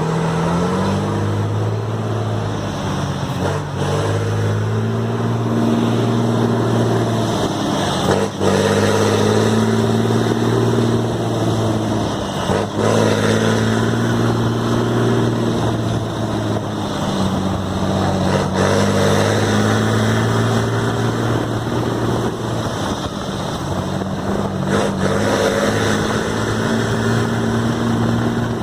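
Heavy truck's diesel engine through a straight-pipe exhaust, pulling hard up through its lower gears: the engine note climbs, then drops back at each gear change, several times over.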